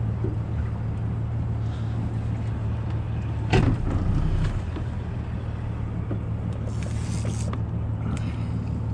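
A 225-horsepower outboard motor runs with a steady low hum under a rushing wash of wind and water. A single sharp knock comes about three and a half seconds in.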